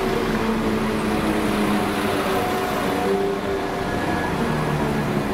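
Diesel train engine running, a steady drone with several held tones, its engine note changing a little after four seconds in.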